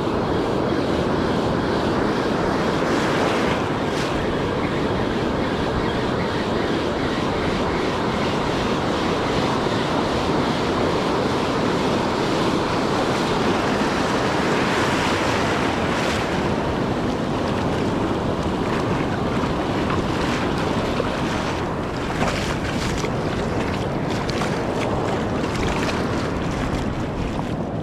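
Surf breaking and washing over the sand in the shallows, a steady rush mixed with wind on the microphone. A few faint clicks come through in the second half.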